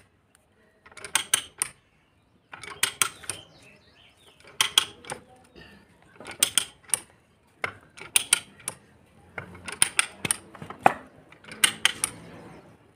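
Ratcheting pipe die stock cutting threads on a water pipe clamped in a pipe vise: a cluster of sharp metallic ratchet clicks with each swing of the handle, about every one and a half to two seconds.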